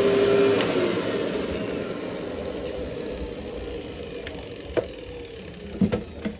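Workhorse cyclonic canister vacuum's motor winding down after being switched off, its whine falling in pitch and fading over several seconds. A few sharp clicks come near the end.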